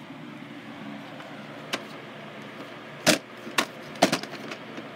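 VHS tape cases being handled: plastic clicks and clacks, a small one near the start and several sharper ones in a cluster in the second half, over a faint steady hum.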